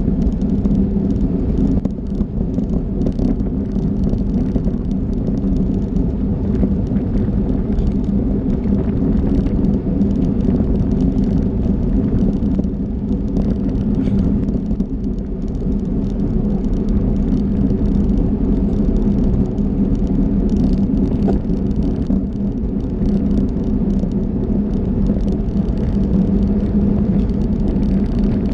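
Steady wind rush and tyre rumble from a racing bicycle rolling on asphalt at speed, picked up by a bike-mounted action camera, with a constant low hum underneath.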